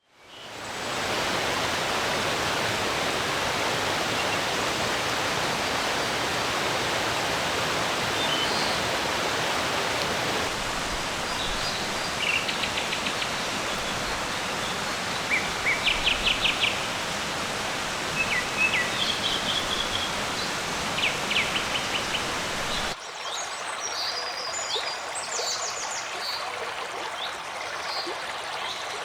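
Flowing stream rushing steadily, with songbirds chirping and giving short rapid trills over it. The water fades in at the start and drops suddenly to a quieter level about three quarters of the way through, leaving the birdsong more prominent.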